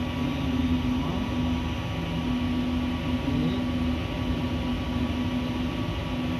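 A steady low mechanical drone with a strong humming tone that drops out briefly a few times.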